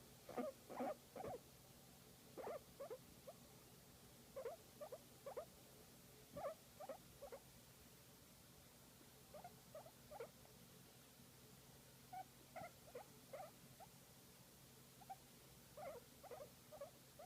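Guinea pig making short, soft squeaky calls in small clusters of two to four, a few seconds apart, the contented sounds of a guinea pig enjoying being massaged.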